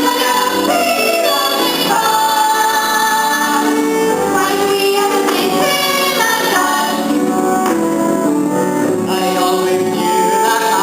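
Young performers singing a musical-theatre song, mostly female voices, with sustained, wavering notes.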